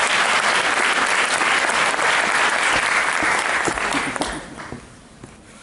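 Audience applauding: dense clapping that tails off and dies away about four to five seconds in.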